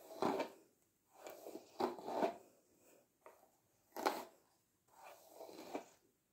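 Long hair being combed through, a series of short rustling strokes about a second apart.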